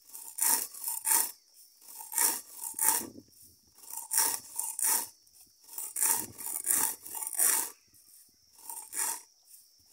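Round hand stone rubbed back and forth over dry pigeon peas on a flat grinding stone, splitting the seeds in two under light pressure: a regular run of gritty scraping strokes, with a brief pause near the end.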